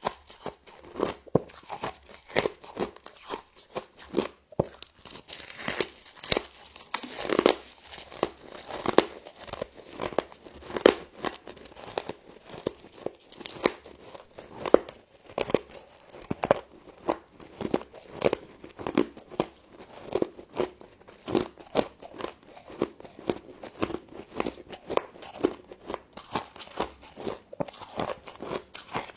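Frost being bitten and chewed up close: a run of irregular, crisp crunches, several a second, with a denser crackling stretch about six to eight seconds in.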